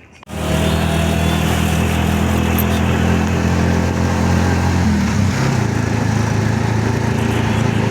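A small electric motor switches on suddenly and runs steadily with a loud hum; its pitch shifts slightly about five seconds in.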